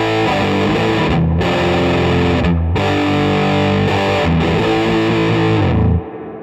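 Electric guitar played through a silicon Tone Bender MKII–style fuzz pedal built with 3903 transistors, into a Fender Deluxe Reverb amp: a heavily fuzzed riff with a few very short breaks, stopping suddenly near the end.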